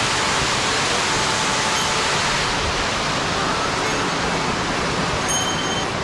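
Steady rush of falling water, loud and even throughout.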